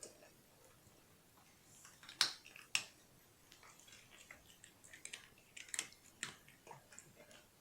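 A cat crunching dry kibble: an irregular scatter of faint, sharp crunches and clicks, the loudest two about two seconds in.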